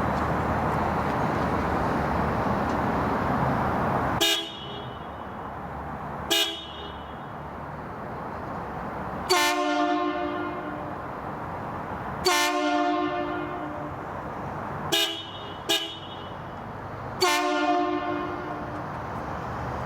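Hornblasters Rocker train air horn kit, two horns on a car, sounding seven blasts: two short toots, two longer blasts of about a second each, two more short toots and a final longer blast. Each blast is a two-note chord and dies away with a fading tail. Steady road or wind noise runs underneath and is loudest before the first blast.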